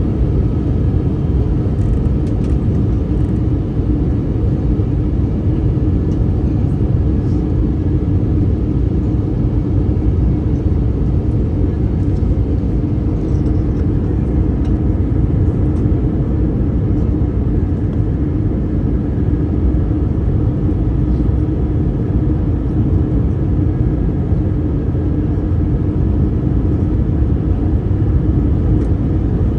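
Steady cabin rumble of an Airbus A321neo in flight, heard from inside the cabin: engine and airflow noise holding level throughout, with a faint hum over the low roar.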